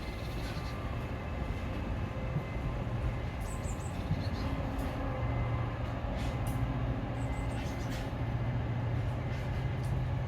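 A train running, with a steady low engine hum that grows stronger about halfway through, and light scattered clicks over it.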